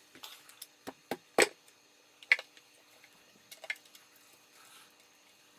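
Light handling clicks and knocks as the amplifier plate is worked out of a subwoofer cabinet and its wire connectors are detached; a quick run of small clicks, one sharper click a little over two seconds in, and two more near the end.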